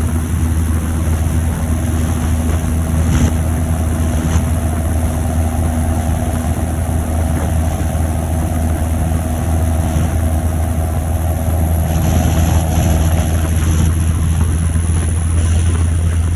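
John Deere 7530 Premium tractor's six-cylinder turbo diesel running steadily under way, with a high turbo whistle over the engine note that drops in pitch over the last few seconds.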